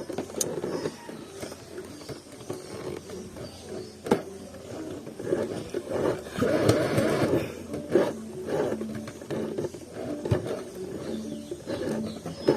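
Small portable sewing machine stitching thick denim, its motor running in uneven spurts with occasional sharp clicks and a louder run about halfway through.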